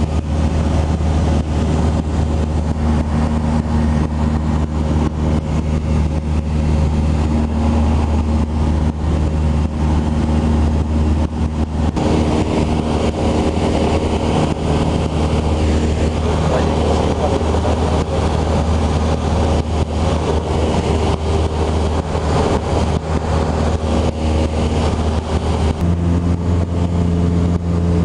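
Cessna 172 Skyhawk's piston engine and propeller droning steadily in flight, heard inside the cabin. The drone shifts slightly in tone about halfway through and again near the end.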